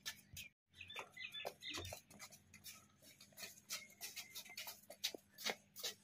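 Scattered knocks, taps and scuffs of a wooden armchair being pushed and handled on a concrete floor, with a few short high chirps in the background.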